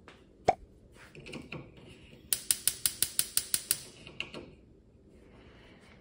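Gas range burner igniter clicking, a quick run of about nine sharp ticks at roughly six a second, with no flame catching because the gas supply is cut off. A single sharp knock comes about half a second in.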